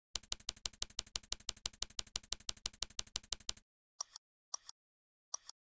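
Rapid, even keyboard typing clicks, about six a second, that stop about three and a half seconds in, followed by three double clicks of a computer mouse.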